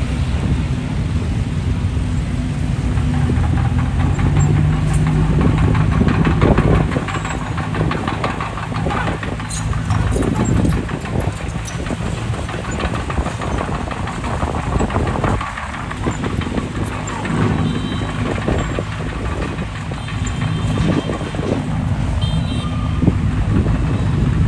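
D20P crawler bulldozer's diesel engine running under load as it pushes soil, its pitch rising and falling, with clanking and knocking throughout.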